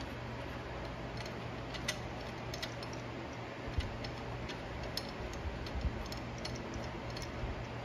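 Light, irregular metallic clicks and taps of a cast-iron differential bearing cap and carrier being handled and seated by hand in a Dana 30 axle housing, over a steady low hum.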